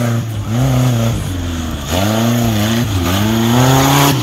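Tubular-frame off-road buggy's engine revving hard in repeated surges while driven over rough dirt. The pitch climbs and drops about three times, rising highest near the end.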